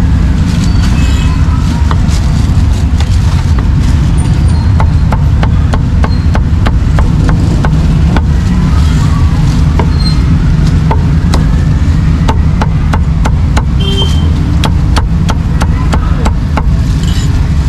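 Heavy meat cleaver chopping roast and barbecued pork on a wooden chopping block, dozens of sharp chops in quick runs that come thickest in the second half. Under it runs a loud, steady low rumble.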